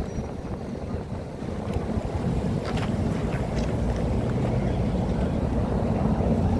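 Low rumble of city street traffic that drops away at the start and then slowly builds again.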